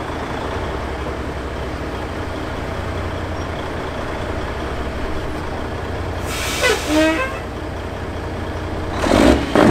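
A heavy diesel engine running steadily at idle. About six seconds in there is a brief sound that slides down in pitch, and near the end a loud short noisy burst.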